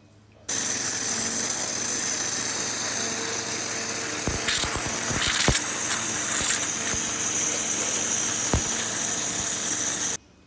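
Waterjet cutter cutting a red marble slab: a loud, steady hiss of the high-pressure jet, with a few sharp clicks around the middle and one more later. It starts suddenly about half a second in and cuts off suddenly near the end.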